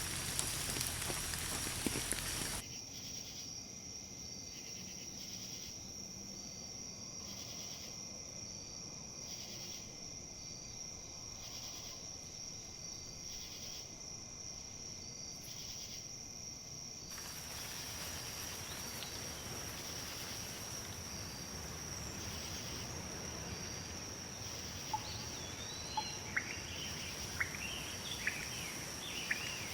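Nature ambience: rain pattering that cuts off abruptly about two and a half seconds in, leaving a steady high insect trill over a soft hiss. A breezy rustle of wind in leaves swells about halfway through, and near the end a bird calls with a run of short, sharp chirps.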